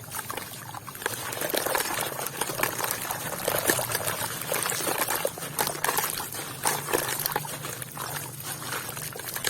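Wet sand and red dirt crumbling into water: a continuous gritty trickling and pouring, dotted with many small sharp clicks.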